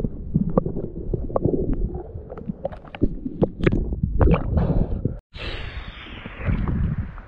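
Muffled underwater sound: a low rumbling with many sharp clicks and knocks as a speargun is handled. About five seconds in it cuts off abruptly and gives way to water splashing at the surface.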